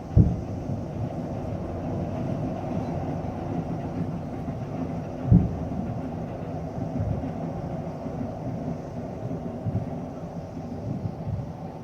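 Fireworks shells bursting at a distance: two sharp, loud booms, one at the start and one about five seconds in, with weaker thuds between, over a continuous low rumble of further bursts echoing.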